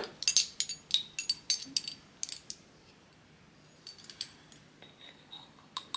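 A quick run of light metallic clinks and taps, a measuring spoon against its container while cinnamon powder is spooned out, over the first two and a half seconds, then a few faint taps near the end.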